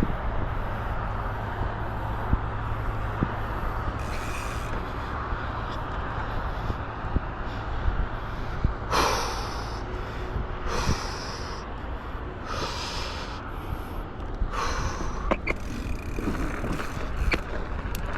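Wind buffeting the microphone and a steady low rumble while riding a mountain bike, with several short, loud rushes of noise in the second half.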